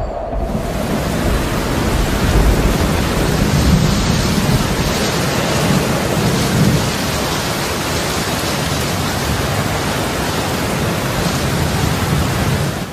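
Thunderstorm: heavy rain hissing steadily with low rumbling thunder underneath, cutting off abruptly at the end.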